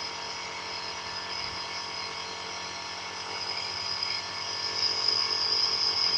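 Electric nebulizer compressor running steadily: a constant hum with an airy hiss over it, growing a little louder near the end.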